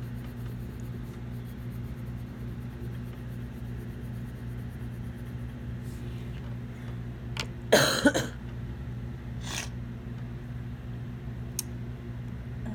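A woman's short double cough about eight seconds in, from a head cold, over a steady low hum.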